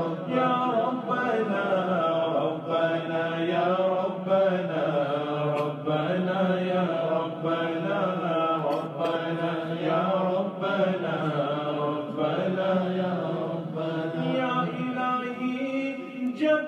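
Male voices chanting an Urdu naat in long, wavering held notes over a steady low vocal drone.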